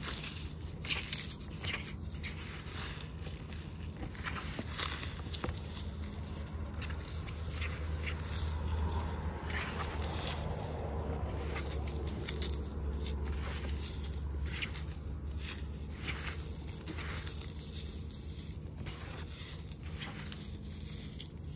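Hands crushing and crumbling baked Sahara dry floral foam, a continuous run of dry crunches and crackles as the brittle pieces break apart.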